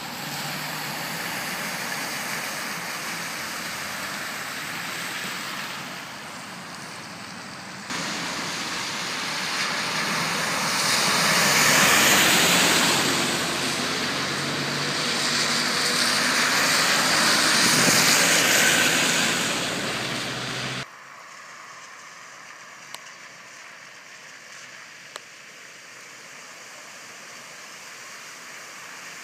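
Cars driving through shallow floodwater on the road, tyres hissing and spraying water, swelling twice as vehicles pass through the middle. The sound drops suddenly about two-thirds of the way through to a quieter steady hiss of tyres on the wet road.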